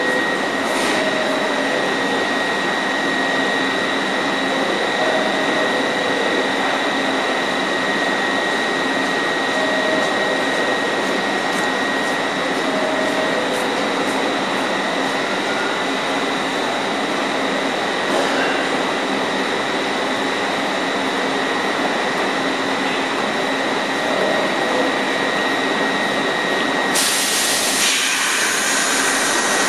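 R62A subway train standing at the platform with its doors open, giving a steady hum with a high, steady whine. About 27 seconds in, a loud hiss starts and runs for a few seconds.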